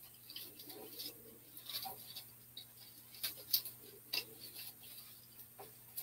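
Dry grapevine twigs of a wreath and artificial flower stems crackling and rustling as stems are pushed in among them by hand, with a few sharp clicks about three to four seconds in.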